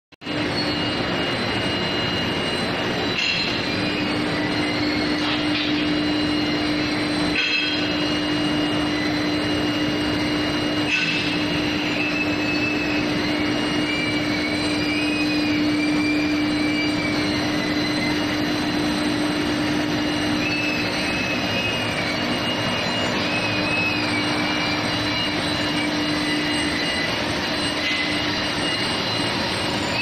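Steel billet induction heating line running, its powered roller conveyor carrying steel bars: a steady, loud mechanical din with a constant hum, a wavering high squeal, and a few sharp clanks in the first dozen seconds.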